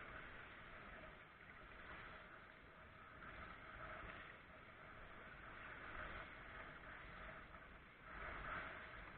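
Faint, steady rush of river water around a raft, swelling and easing every second or two.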